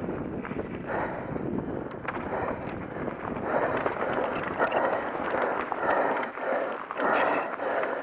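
Mountain biker breathing heavily from the effort of climbing, loud rhythmic breaths coming roughly every three-quarters of a second from about three and a half seconds in. Underneath is the rumble of knobby tyres rolling over a dirt and rock trail.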